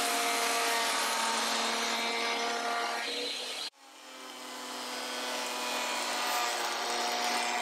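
Benchtop jointer-planer running as a scrap-wood board is fed over its cutterhead to plane the face: a steady machine noise with a motor whine. It cuts off suddenly about halfway through and then builds back up over a couple of seconds.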